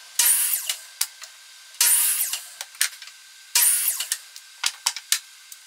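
Compound miter saw cutting a wooden board, three short cuts about two seconds apart. Each cut is a brief burst of blade-through-wood noise, followed by a few sharp clicks and knocks of the wood being handled on the saw table.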